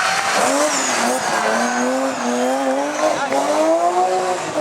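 Rally car engine at high revs, its pitch climbing and dropping back sharply at gear changes about a second in and again just after three seconds.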